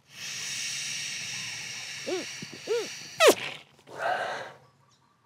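A person blowing hard through cupped hands into the end of a garden hose: a long rush of air with three short squeaks that rise and fall in pitch, then a quick breath out about four seconds in. The hose leads to a water heater drain clogged with sediment, so it is really hard to blow into.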